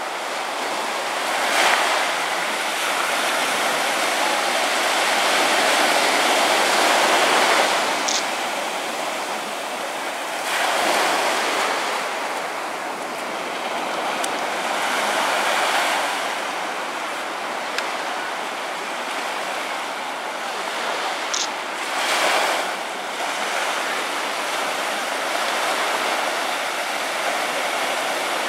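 Ocean surf washing onto a sandy beach: a steady rush that swells each time a wave breaks, loudest in several surges a few seconds apart.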